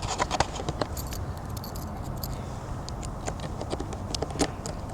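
Keys jangling and clicking against a small security padlock, treated with pure silicone and left to freeze, as the key is worked into the lock: scattered sharp metallic clicks.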